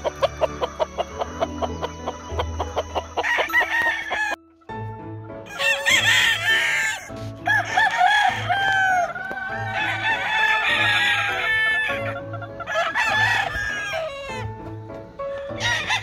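Game roosters crowing several times, each a long call that rises and falls, over background music with a steady beat; the sound drops out briefly about four and a half seconds in.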